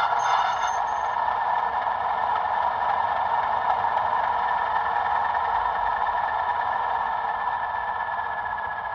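Bachmann OO gauge Class 37 model locomotive running on the track, its DCC sound decoder playing a steady diesel engine sound with a high whine over the clatter of the wheels on the rails; it fades slightly near the end.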